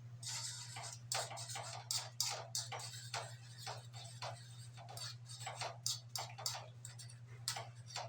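Kitchen utensils knocking and scraping against cookware in quick, irregular strokes, a few a second, over a steady low hum.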